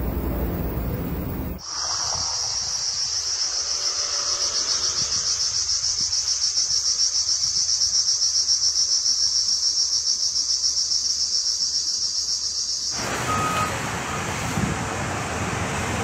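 Cicadas buzzing in a loud, even, rapidly pulsing drone that starts abruptly about two seconds in and cuts off about thirteen seconds in. Rumbling wind noise surrounds it.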